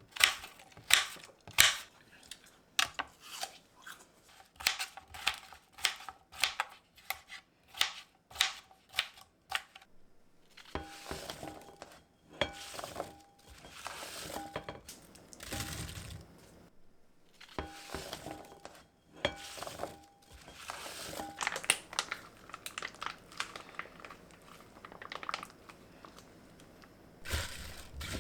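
Kitchen handling sounds: for the first ten seconds a string of sharp taps and clicks, one or two a second, then longer rustling and crinkling stretches, as of packaging being handled.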